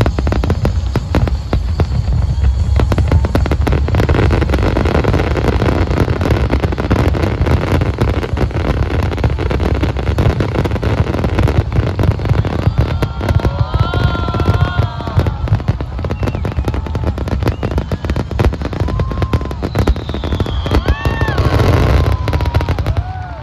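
Fireworks display going off in dense, rapid bangs and crackles over a deep rumble of booms, dropping away just before the end.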